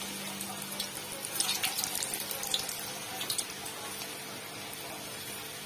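Rice-flour chegodis deep-frying in a kadai of hot oil on low flame: a steady bubbling sizzle with scattered crackles.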